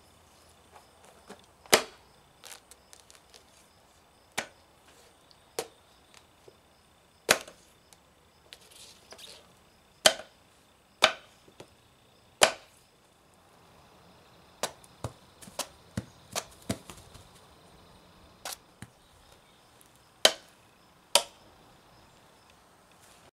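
Steel corn knife chopping through a large yellow squash into a wooden stump: more than a dozen sharp chops at irregular intervals, with a quick run of lighter ones about two-thirds of the way through.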